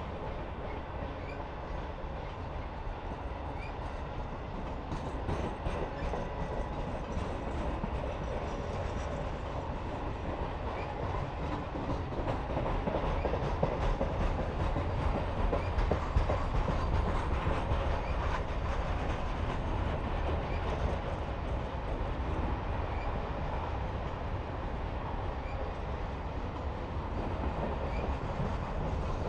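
Norfolk Southern Triple Crown RoadRailer train rolling past, with a continuous rumble of wheels on the rails that swells a little midway through and then holds steady.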